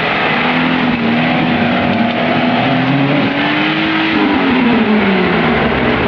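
Off-road vehicle engine running hard under load, its pitch held high and creeping up, then falling away steadily after about four seconds as the engine loses revs on the climb.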